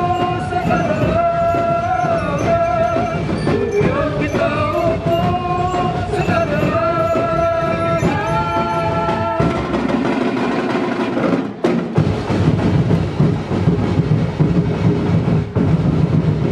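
Loud festival dance music: a melody over drums and percussion, changing a little past halfway to a heavier, drum-led passage.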